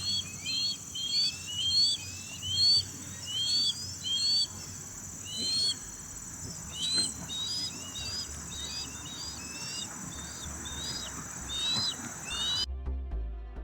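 Osprey calling: a long series of short, sharp whistled chirps, about two a second, over a steady high-pitched insect drone. Near the end it cuts to music.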